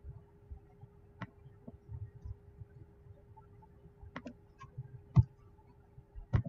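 Computer mouse clicks and a few keyboard keystrokes: scattered sharp single clicks, a quick cluster of them past the middle and a firmer click near the end, over a faint steady hum.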